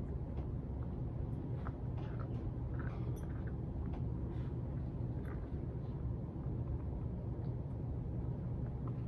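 A steady low background hum, with faint scattered crunches and clicks of a puppy chewing on small marrowbone dog treats.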